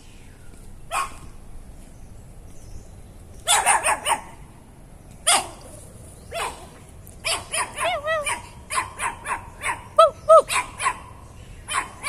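Chihuahua barking: a single bark about a second in, a quick run of four a few seconds later, then a long string of rapid barks from about seven seconds on.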